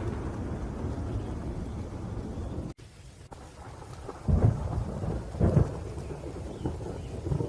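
Thunderstorm: steady rain with rumbling thunder. The sound drops out abruptly for a moment a little under three seconds in, then two loud thunder claps follow about a second apart.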